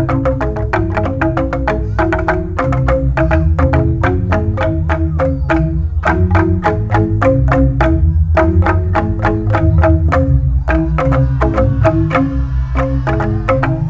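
Jegog ensemble of bamboo-tube percussion instruments struck with mallets, playing fast interlocking patterns of short, evenly spaced notes over sustained deep bass notes from the largest bamboo tubes.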